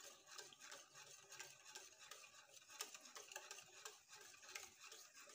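Faint, uneven scraping and ticking of a wire whisk stirring thick yogurt in an enamel dish.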